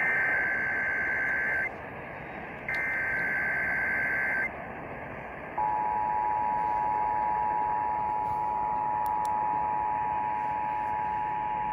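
Emergency Alert System monthly test heard over the radio: two buzzing SAME digital header bursts, each just under two seconds long, then, about five and a half seconds in, the steady two-tone EAS attention signal, which holds to the end. Radio hiss runs underneath throughout.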